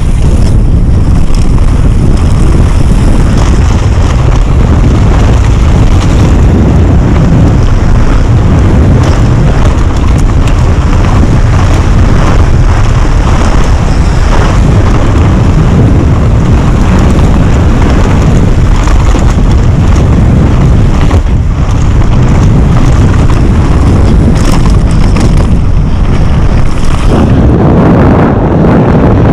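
Heavy wind buffeting on an action camera's microphone during a fast downhill mountain-bike run, a loud steady rumble. Under it, scattered knocks and rattles come from the bike's tyres on dirt and loose gravel.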